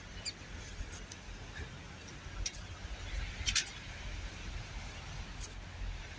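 Quiet outdoor background with a steady low rumble and a few short, sharp scraping noises, about two and a half and three and a half seconds in.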